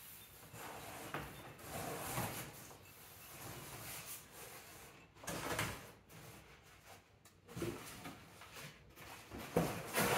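Cardboard shipping boxes being handled and shifted, with bouts of rustling and a few sharp knocks, the loudest near the middle and just before the end.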